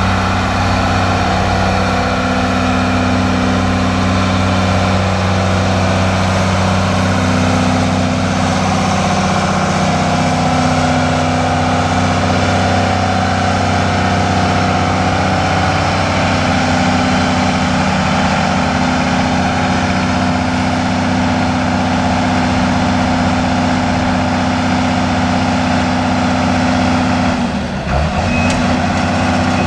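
Case CX330 excavator's Isuzu six-cylinder turbo diesel running at a steady pitch while the machine swings and tracks. The sound dips briefly about two seconds before the end, and then a travel alarm starts beeping.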